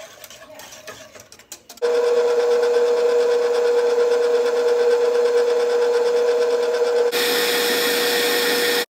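Electric stand mixer running: after a few light knocks, its motor starts about two seconds in with a steady, loud whine. About seven seconds in the sound turns brighter and hissier, and it cuts off abruptly just before the end.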